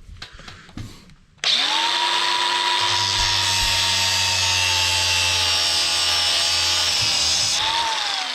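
Electric power tool shortening a heavy battery cable. It spins up about a second and a half in, runs with a steady whine for about six seconds, then winds down near the end.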